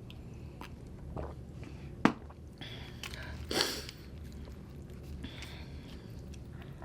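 Quiet close-up eating sounds of a person chewing a burrito, with soft mouth clicks, one sharp click about two seconds in and a short louder crackle about three and a half seconds in.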